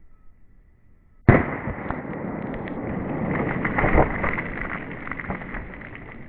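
A single .45 ACP pistol shot from a Glock 21 Gen 4 about a second in, sharp and very loud, followed by several seconds of continuous splashing and spilling water with small patters from the shot water jugs, slowly fading.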